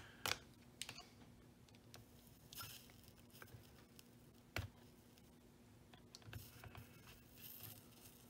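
Near silence: a few faint taps and clicks of a soldering iron and solder wire being handled at a leaded-glass panel on the bench, with short faint hisses and a faint steady hum.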